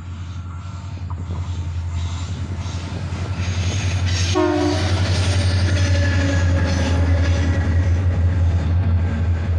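Freight train hauled by GWB- and CLF-class diesel locomotives approaching and passing close by. The engines' low hum grows louder as the locomotives come up. A short horn blast sounds about four seconds in, and then the wagons rumble past.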